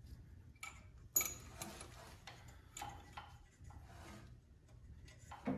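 Irregular small metallic clicks and taps as a hex key works the set screws out of a Cub Cadet 122's mechanical PTO hub. The sharpest click comes about a second in and another near the end.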